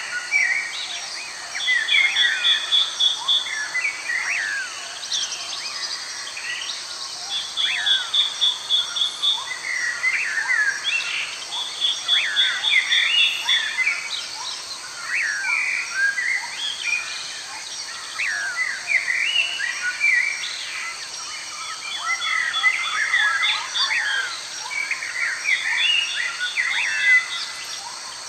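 Many birds chirping with short sweeping calls, with a rapid pulsed trill that recurs every couple of seconds, over a steady high insect hiss.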